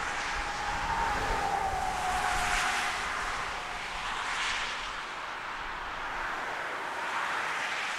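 Jet engines of a British Airways Embraer regional jet on its runway roll, a steady rushing noise with a whine that falls slowly in pitch over the first few seconds as the aircraft slows after landing.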